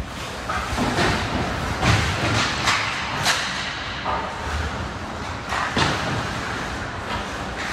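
Irregular thumps and knocks, about seven over several seconds, over a steady noisy background.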